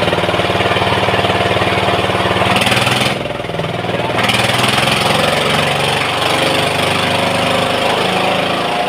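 An engine running steadily, a little quieter for about a second just after three seconds in.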